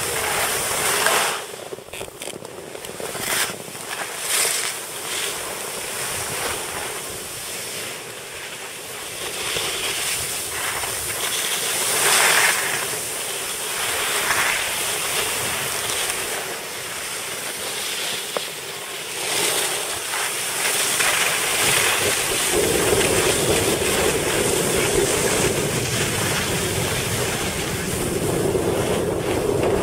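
Skis sliding and scraping over packed snow while skiing downhill, with wind noise on the microphone. The scraping swells and fades in surges, and about two-thirds of the way through a steadier, lower rush takes over.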